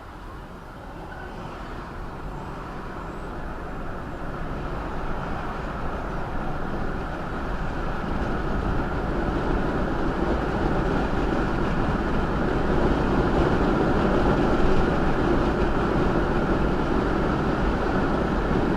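Car driving on the road, heard from inside the cabin: steady engine and tyre noise that grows gradually louder.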